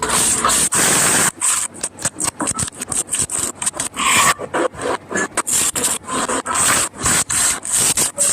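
Quick, repeated scraping and rubbing strokes of a kitchen utensil while making aloo paratha, many short strokes with brief gaps between them.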